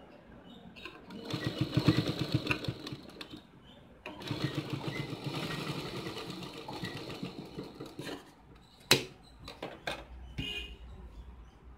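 Sewing machine stitching in two quick runs, the needle clattering rapidly and evenly, stopping briefly between them. A few sharp clicks and knocks follow near the end.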